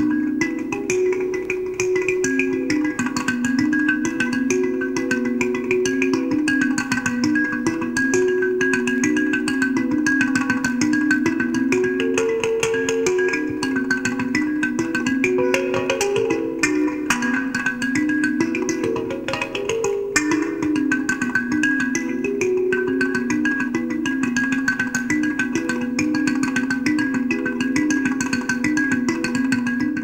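Marimba music: a quick, repeating pattern of mallet-struck notes at a steady level.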